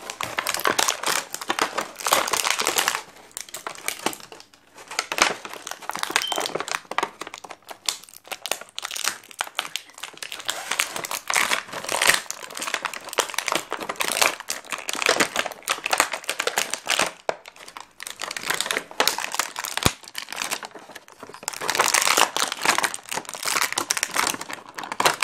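Plastic and cardboard packaging of an action figure crinkling and rustling as it is opened by hand, in spells of a few seconds with short quieter pauses.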